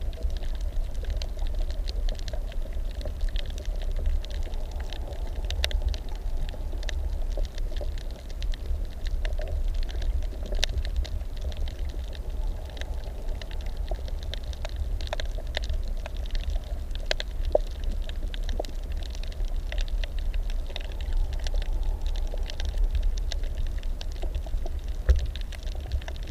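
Underwater reef sound: irregular sharp clicks and crackles, the reef crackle of snapping shrimp, over a steady low water rumble.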